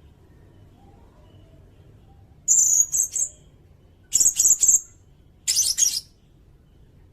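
Sirindet bird calling: three short bursts of very high, rapid chattering notes about a second and a half apart, starting about two and a half seconds in.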